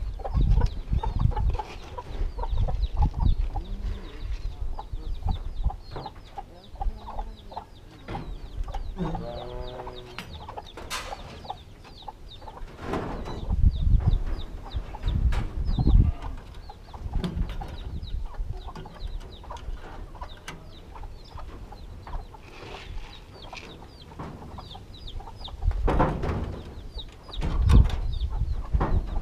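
Chickens clucking, with high cheeps scattered throughout. Over this come irregular thumps and knocks as pens and feed or water containers are handled, loudest around the middle and near the end.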